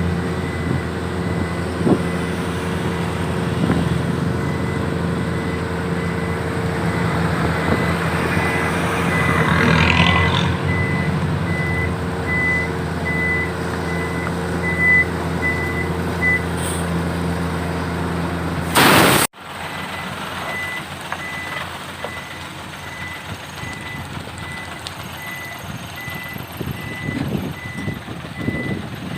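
Isuzu FXZ 360 dump truck's diesel engine running steadily while its reversing alarm beeps about twice a second. A short loud hiss comes about two-thirds of the way through, and after it the engine is quieter and the beeping carries on.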